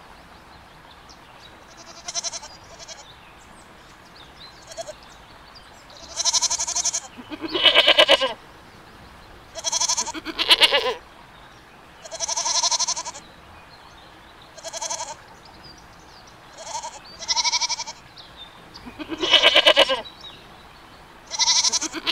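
Goats bleating: a string of about a dozen separate calls, some high and thin, some lower and fuller, with short pauses between them.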